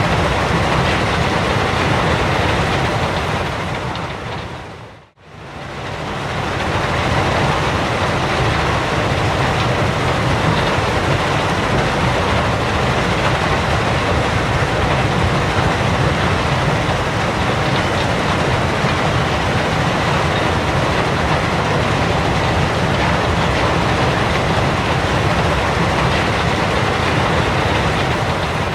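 Gravel pit ambience: a steady, loud wash of heavy machinery noise. It fades out and straight back in about five seconds in, as the recording loops, and begins fading again at the end.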